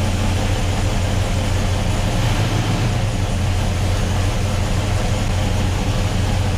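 A 1979 Chevrolet Monte Carlo's built 355 small-block Chevy V8 idling steadily.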